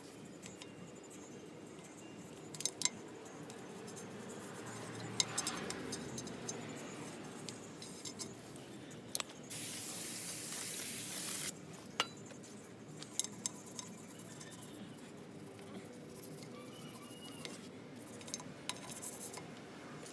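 Hand work on a pickup's drum brake: scattered small metallic clicks and clinks of parts and tools, with a steady hiss lasting about two seconds near the middle.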